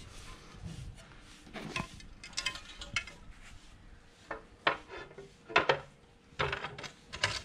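Naish S25 Jet hydrofoil parts knocking and scraping as a wing is pushed and seated onto the fuselage: a scattered run of short, sharp clicks and knocks, several in quick succession near the end, on a tight, snug fit.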